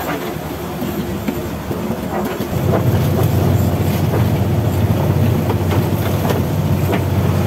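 A fishing boat's engine running steadily while the boat is underway, a low rhythmic drone that gets louder about two and a half seconds in.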